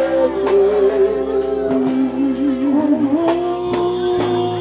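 R&B band playing live, with a male singer holding and bending long, wavering notes over drums and cymbals.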